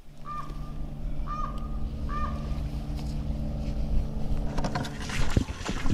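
A bird calls three times, about a second apart, each call a short rising note with a held tail, over a steady low hum. Near the end, a clatter of knocks and rustling takes over.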